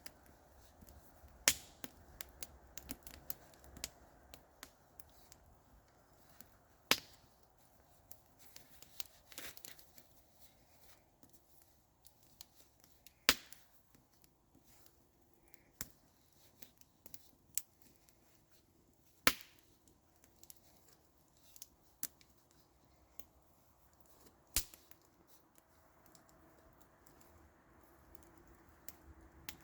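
Campfire crackling: scattered small snaps with a louder pop every few seconds.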